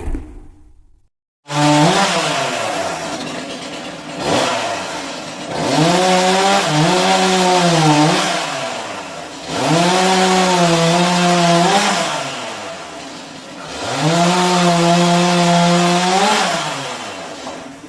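Two-stroke chainsaw revving and cutting. Its engine pitch climbs and falls in about four surges at high throttle, each held for a couple of seconds before dropping back, and it cuts off just before the end.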